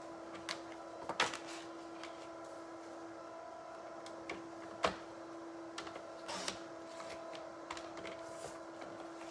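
A steady electrical hum with a few light clicks and taps scattered through it, the sharpest about a second in and near the middle, as small craft tools are handled on the work table.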